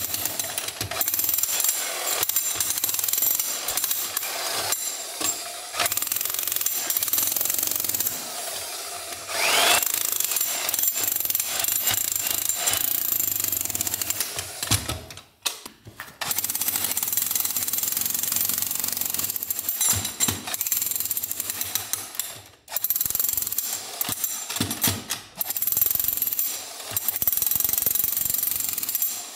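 Corded electric demolition hammer with its chisel bit hammering into an old stone flagstone floor. It runs in long bursts, with a few brief pauses between them.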